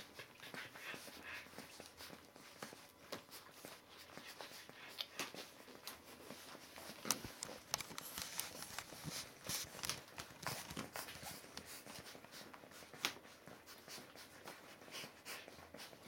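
Three-week-old Border Collie puppies scrambling and suckling against their mother: soft, irregular rustling and small clicks of paws and mouths, with a sharper tick about seven seconds in and another near thirteen seconds.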